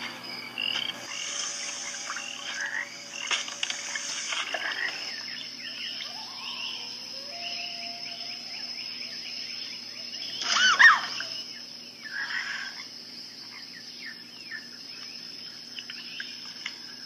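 Frogs croaking and chirping over a steady, high-pitched insect drone: a night-time pond or lakeside ambience. A brief, louder call with rising and falling pitch comes about eleven seconds in.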